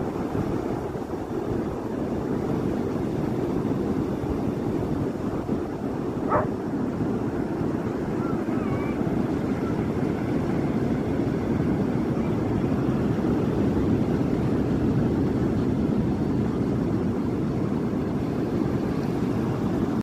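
Surf washing up and running back over a flat sandy beach, a steady rush of breaking waves. A brief higher note cuts through about six seconds in, followed by a few faint short whistling glides.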